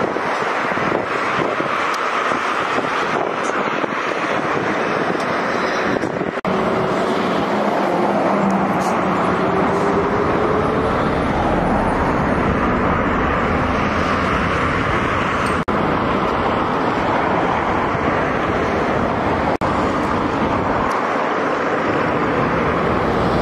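Steady road noise of a car driving at speed: tyre roar on asphalt mixed with wind rush.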